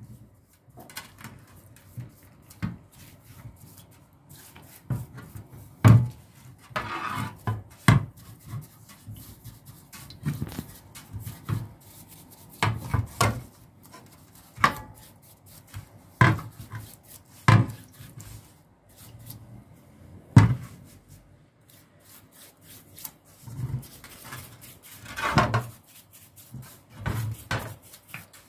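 Bristle brush scrubbing a greasy electric motor part in a shallow aluminium tray of liquid, with irregular knocks and clunks as the metal part is turned and bumped against the tray.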